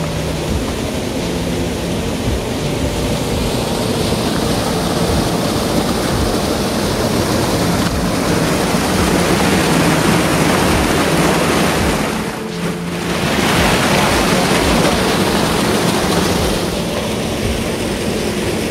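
Steady rush of flowing water in a colonial-era irrigation channel, loud and even, briefly dropping in level about twelve seconds in, with a faint steady low hum underneath.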